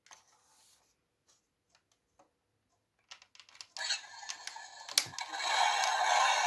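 Handling of a plastic toy: a few light clicks, then from about four seconds in a steady scraping rustle with clicks and one sharp knock near the middle of it.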